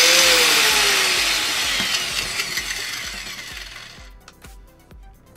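Corded angle grinder motor winding down: its whine peaks just at the start, then falls in pitch and fades over about four seconds as the disc coasts to a stop. The grinder has an intermittent fault that makes it cut out and start again by itself. A few faint handling clicks follow.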